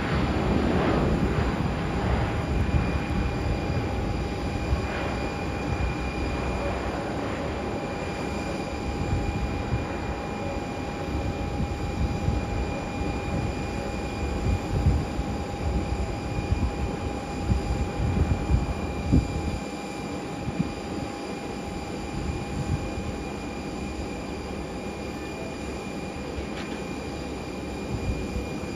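Twin-engine jet airliner's turbofan engines running as it rolls out and slows along the runway after landing: a steady rumble with a thin, steady whine on top, easing a little about two-thirds of the way through.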